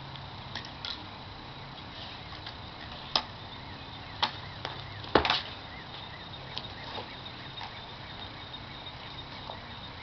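A few sharp knocks over steady outdoor background noise, the loudest a short double knock about five seconds in.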